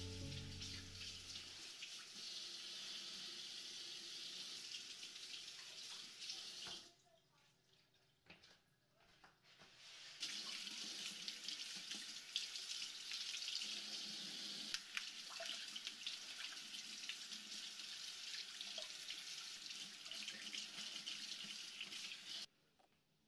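Kitchen faucet running, its stream splashing into the sink as radish greens are rinsed under it by hand. The water stops about seven seconds in, starts again about three seconds later, and stops near the end.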